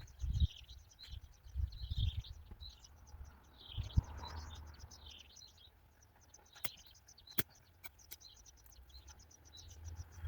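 Birds chirping and singing over a rapid, even ticking of insects, with a few low rumbles in the first few seconds and several short sharp clicks in the second half.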